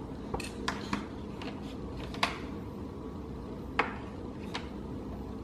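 Scattered sharp clicks and clacks of plastic letter magnets being handled and stuck onto a refrigerator door, about six in all, the loudest about two seconds in.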